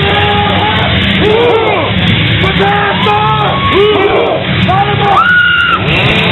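A crowd yelling and screaming over loud music, many voices overlapping in short rising-and-falling shouts.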